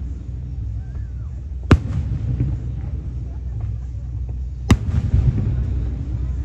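Aerial firework shells bursting overhead: two sharp booms, the first a little under two seconds in and the second about three seconds later, over a continuous low rumble.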